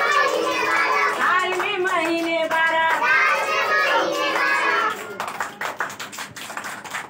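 A teacher and a class of small children singing a Hindi months-of-the-year rhyme together while clapping along. The singing stops about five seconds in, leaving only their hand claps.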